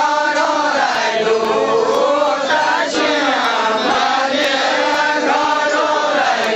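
A chorus of men singing a folk chant together in unison, several voices overlapping in a steady, repeating melody.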